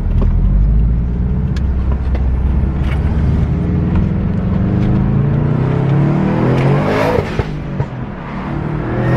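Subaru WRX STI's turbocharged flat-four, breathing through a new Invidia downpipe and XForce cat-back exhaust, running low and then climbing steadily in revs for several seconds. The revs drop sharply about seven seconds in and start climbing again near the end.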